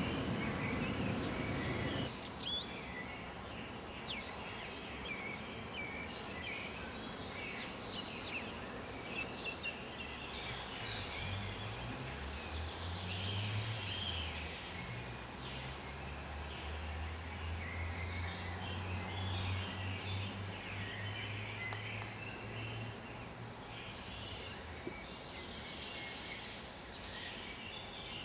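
Outdoor ambience with small birds chirping and singing intermittently over a background of noise. A low steady drone, like a distant engine, sits underneath for about twelve seconds in the middle, and the first two seconds carry a louder low rumbling noise.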